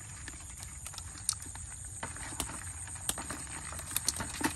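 Woven bamboo fish trap tipped over a plastic bucket, its catch being shaken out: irregular sharp taps and clicks, a few louder ones close together near the end.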